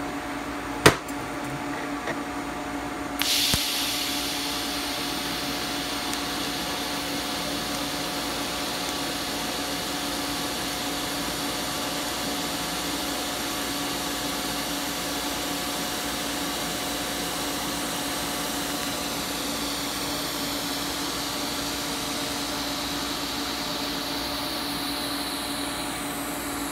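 TIG welding arc on 16-gauge 304 stainless at about 100 amps, DC: a sharp click about a second in, then the arc strikes about three seconds in and runs as a steady hiss over a hum. By the end the arc is out and the argon shielding gas keeps hissing in post-flow.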